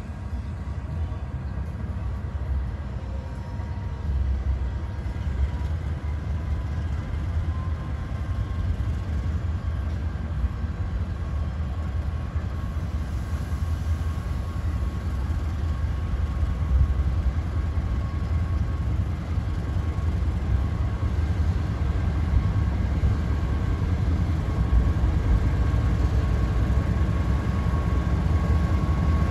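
CC 206 (GE C20EMP) diesel-electric locomotive hauling a train of empty coal wagons, approaching: a deep, steady engine rumble that grows gradually louder as it nears.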